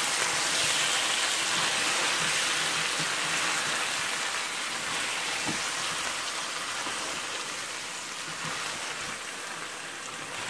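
Fish and peppers in sauce sizzling in a stainless steel pot as a spatula stirs them, with an occasional light knock of the spatula against the pot. The steady hiss slowly fades toward the end.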